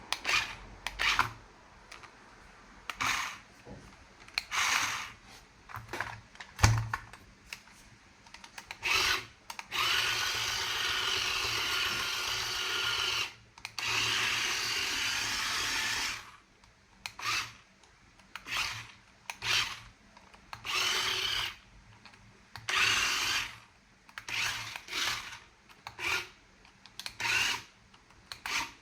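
Plastic toy and packaging being handled: a series of short rubbing and scraping sounds, with one sharp knock and a steady whirring noise lasting about six seconds in the middle.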